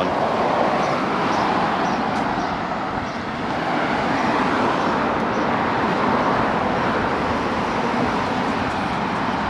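Road traffic passing by: a steady rush of car and tyre noise that swells and eases as vehicles go past, with a short lull about three seconds in.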